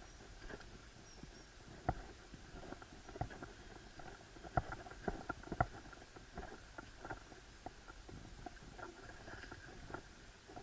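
Handling noise from an action camera being carried low along a path: irregular knocks, clicks and rubbing, some much sharper than others.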